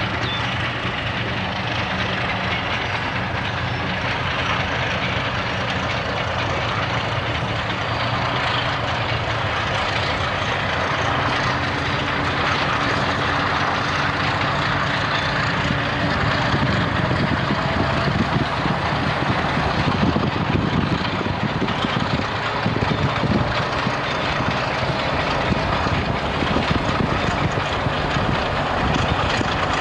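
Baldwin diesel switcher locomotive's engine running as it moves its train along the track. The engine note is steady at first, then grows louder and rougher from about halfway through as the locomotive draws nearer.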